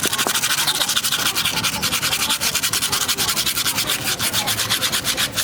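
Fast, even sanding or rasping strokes, about eight a second, on a car wheel being repaired.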